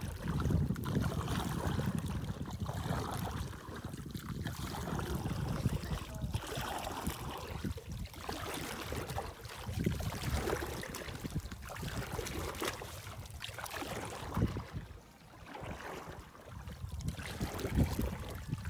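Shallow sea water sloshing and splashing in uneven swishes as someone moves through it.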